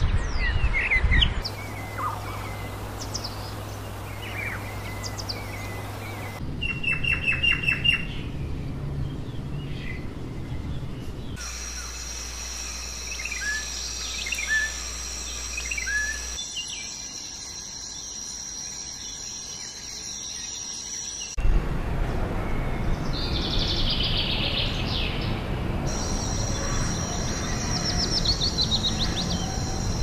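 Several different bird recordings spliced together, the background changing abruptly every few seconds. Assorted birds chirp and call over outdoor background noise, with a fast run of repeated notes about seven seconds in. A steady high tone runs through two of the stretches.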